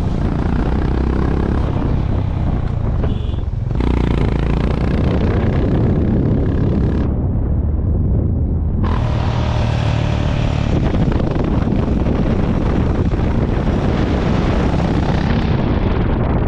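Honda CB350 RS's single-cylinder engine running steadily under way, with wind rushing over the microphone. The wind rises about four seconds in, dies away for about two seconds near the middle, then comes back.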